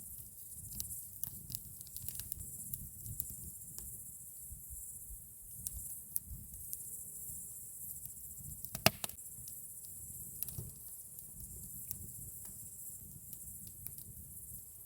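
Wood campfire crackling, with a low steady rumble of flames and irregular small snaps, and one sharp, much louder pop about nine seconds in.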